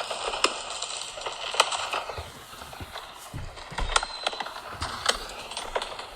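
Fireworks crackling, with scattered sharp pops and a few low booms around the middle.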